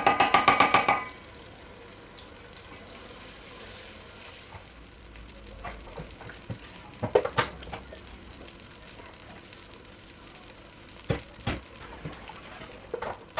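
Sauce frying in oil in a cooking pot, a steady low sizzle, while it is stirred. A quick run of ringing metallic clatters in the first second, and a few single knocks later on.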